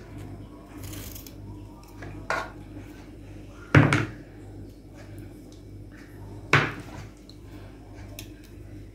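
Flat beans being cut by hand with a kitchen knife over a metal tray: three sharp metallic clinks, about two, four and six and a half seconds in, the middle one loudest, with a few faint ticks in between. A low steady hum underneath.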